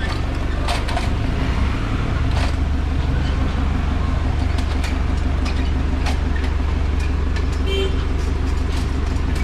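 Steady low street-traffic rumble, with scattered sharp metallic clicks and clanks as a wheel clamp is fitted onto a parked car's front wheel.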